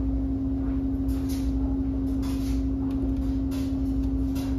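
A steady low electrical hum with a low rumble under it, with a few faint soft brushing strokes as a paintbrush works over a plastic egg.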